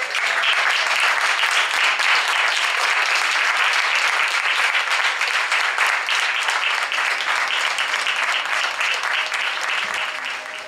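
Theatre audience applauding, a dense continuous clapping that tapers off near the end.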